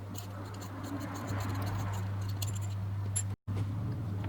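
Small clicks and scratches from hands and a small tool working on a lens's metal and plastic parts, over a steady electrical hum. The sound cuts out completely for a moment about three and a half seconds in.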